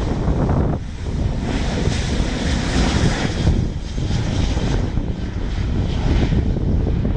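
Boeing 737-600's CFM56-7B turbofan engines at takeoff thrust: a jet roar over a low rumble, its high rushing part swelling a second or so in and fading again near the end as the airliner goes by.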